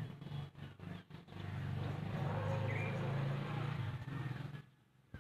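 A steady low mechanical hum, like a running motor, over background noise. It breaks up briefly near the start and cuts off abruptly about four and a half seconds in.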